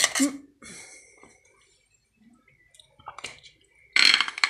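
A metal utensil scraping and clinking against a plate and through soft whipped cream on a cake, in a few short bursts; the loudest comes near the end.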